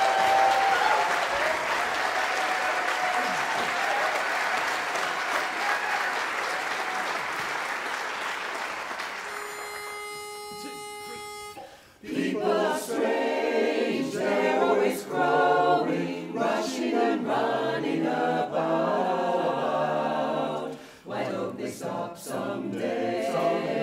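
Audience applause dying away, then a pitch pipe sounding one held note for about two seconds, and a mixed barbershop chorus of men and women begins singing a cappella.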